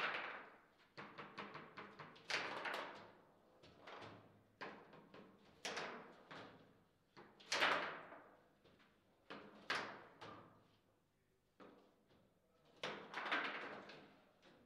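Table football in play: irregular sharp knocks of the ball being struck by the rod-mounted figures and hitting the table, each with a short ringing decay, the loudest about a second apart in a flurry near the end.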